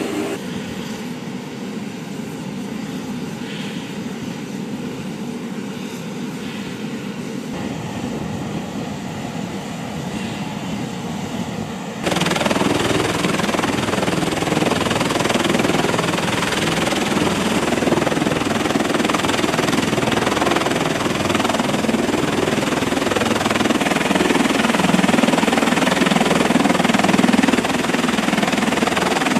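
MV-22B Osprey tiltrotor's twin turboshaft engines and proprotors running. A steady drone is heard inside the cabin, then about twelve seconds in it switches abruptly to a louder, rushing rotor-and-engine noise out on the deck.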